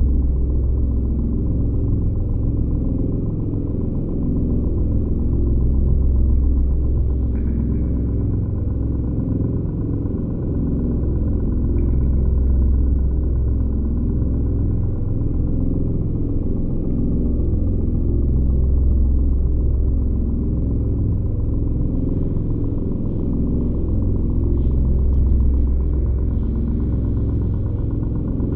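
Ambient music soundtrack: a deep, rumbling low drone that swells and fades about every six seconds, with faint held tones above it.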